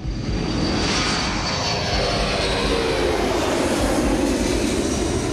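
Large jet tanker aircraft's turbofan engines at takeoff power as it rolls down the runway and lifts off: a steady jet roar with a faint high whine, and a lower tone that falls in pitch about two seconds in.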